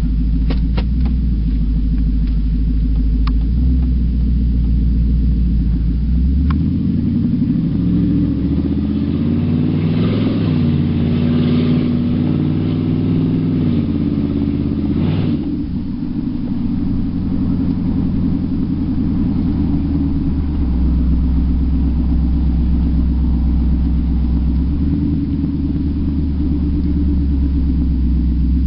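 Nissan Titan's 5.6-litre V8 running with no exhaust, heard from inside the cab: a loud, deep rumble at low speed. The engine climbs in pitch under acceleration from about six seconds in, drops back around fifteen seconds, then settles into a low rumble again.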